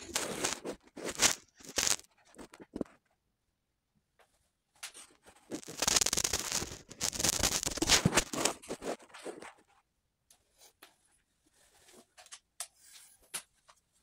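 Irregular bursts of scraping and rustling noise with short quiet gaps, the loudest stretch about six to nine seconds in.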